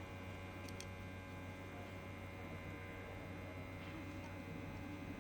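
Hot-air rework station running at a low air setting, giving a steady low electrical hum. There are two faint clicks just under a second in.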